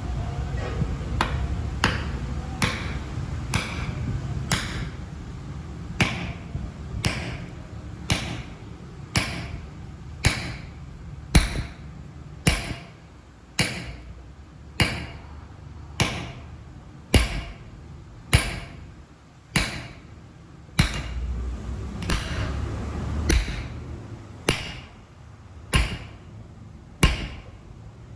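Hammer striking metal in steady blows, about one a second, each with a brief metallic ring, over a low steady machine hum.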